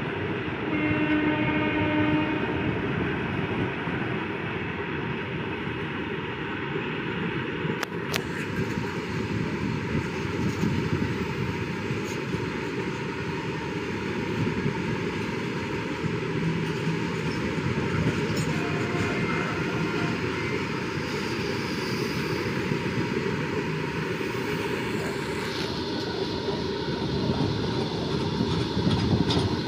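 Freight train wagons rolling past close by: a steady rumble and rattle of wheels on the rails. About a second in, a brief train horn sounds.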